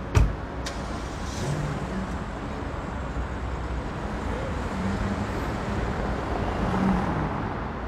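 A car door shuts with a single thud, followed by a lighter click. A car then idles and pulls away over steady street traffic noise, growing slightly louder near the end.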